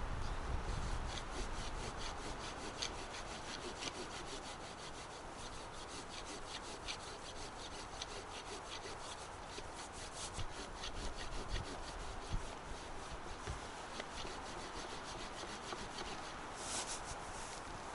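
A hand tool working dry pine wood at a tree trunk in rapid, rhythmic rasping strokes, with a louder stroke near the end.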